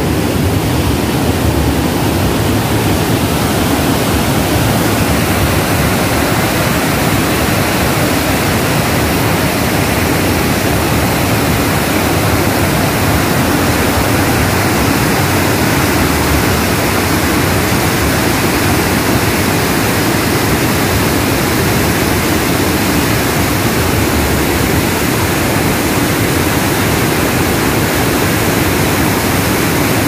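Large waterfall running in flood, water pouring over rock ledges in a steady, loud rush of noise with no breaks.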